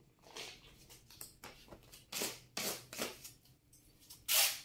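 Cardboard firework cake box being handled and set down on top of another box: a few short rustling scrapes, the loudest one near the end.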